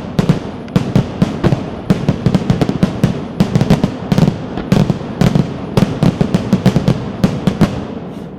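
Fireworks display: a rapid barrage of aerial shell bangs, several a second, packed into a continuous rolling salvo. It breaks off just before the end.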